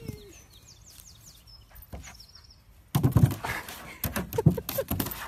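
Small birds give a few quick, high, falling chirps. About three seconds in, loud close rustling and bumping starts and goes on in uneven bursts.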